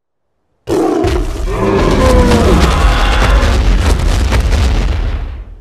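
A loud, long creature roar sound effect over a heavy low rumble. It starts suddenly just under a second in and fades near the end.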